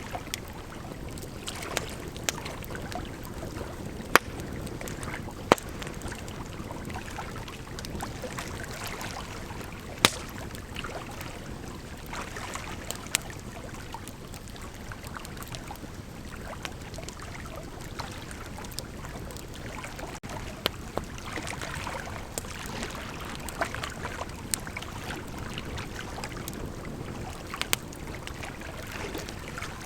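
Bonfire burning: a steady rushing hiss of flames with irregular sharp pops and snaps of burning wood.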